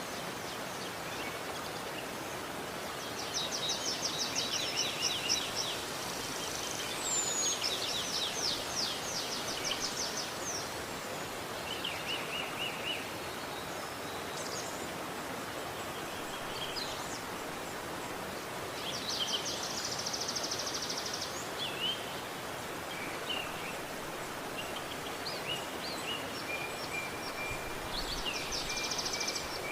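Steady rushing of a river, with small birds singing over it: several quick high trilled phrases and scattered short chirps.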